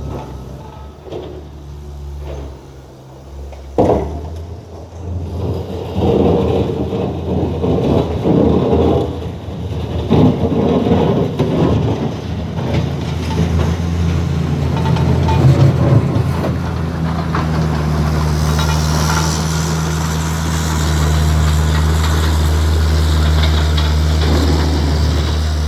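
Skid steer engine running steadily under load. A sharp knock comes about four seconds in, followed by several seconds of rough scraping with more knocks, then a steady, louder engine drone.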